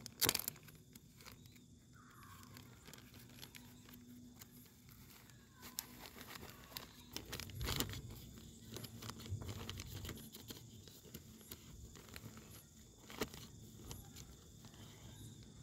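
Plastic zip-lock bag crinkling and rustling as it is handled inside a fabric stuff sack, with scattered clicks and knocks.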